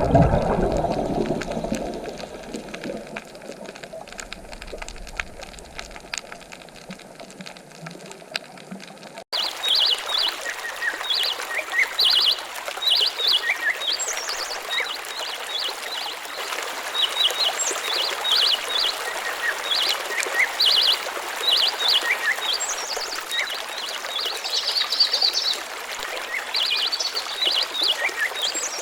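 Rushing water, loud at first and fading over the first several seconds. Then a sudden change to a steady flowing-stream hiss with small birds chirping in quick, rapid series over it.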